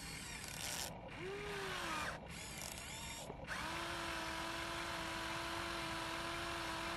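Electric motors of a radio-controlled model excavator whining as the arm and bucket dig and lift. The whine rises and falls in pitch in the first half, with brief breaks, then holds one steady pitch from about halfway in.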